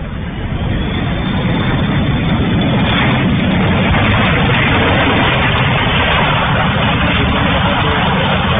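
Business jet rolling out on the runway after touchdown as it slows. Its engine noise swells about a second in and then stays loud and steady.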